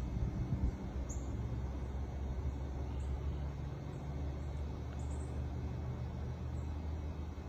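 Outdoor ambience: a steady low rumble with a hum in it, with a few brief, faint, high bird chirps scattered through it.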